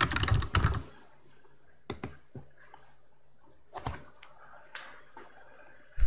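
Computer keyboard typing: a quick run of keystrokes in the first second, then a few scattered single clicks.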